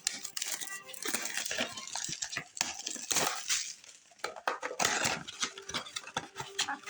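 Cardboard and foil packaging rustling and crinkling in close handling, with many small clicks: a Yu-Gi-Oh booster box being opened and its foil packs pulled out.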